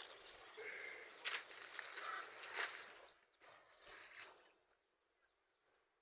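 Footsteps crunching and rustling through dry grass and vegetation for about three seconds, then near silence. Small birds give short rising chirps throughout.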